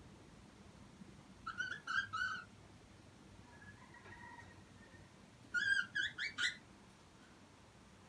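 Cockatiel chirping: two quick bursts of about four short notes each, the second louder, with a faint whistle between them.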